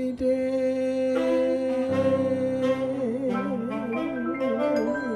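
Small traditional jazz band playing the closing bars of a song: a long held note, then the full band joins with vibraphone, piano and drums, the held tones wavering and struck notes and cymbal hits coming thick in the second half.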